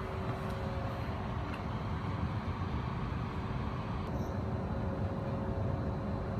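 Steady low hum and rush inside a Heathrow Express train carriage standing before departure: its ventilation and onboard equipment running, with a couple of faint steady tones.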